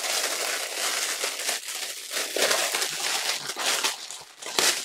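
Packaging crinkling and rustling as it is handled and unwrapped, with a sharper, louder crackle near the end.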